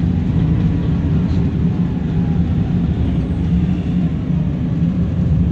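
Wright Eclipse single-deck bus under way, heard from inside the passenger saloon: a steady low rumble of the diesel engine and road noise.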